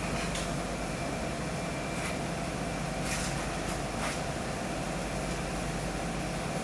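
Steady mechanical hum over a bed of noise, with a few faint clicks.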